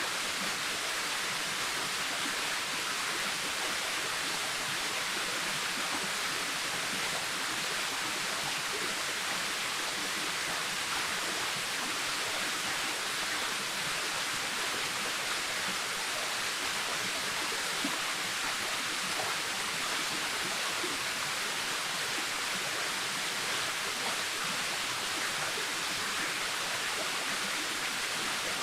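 Waterfall: water falling and splashing in a steady, even rush of noise, heavier in the upper range than the lower.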